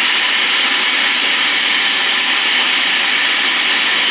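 Food processor running steadily, its blade cutting frozen lard and butter into flour for pie pastry while ice water is added through the feed tube.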